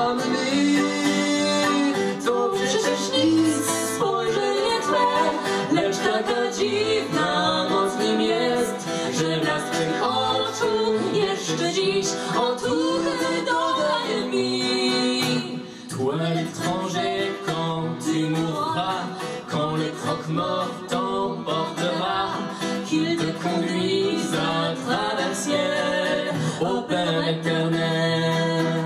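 Song with singing over accordion accompaniment.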